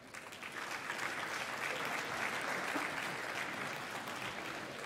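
Audience applauding. The clapping starts suddenly, builds over the first couple of seconds, then begins to die down near the end.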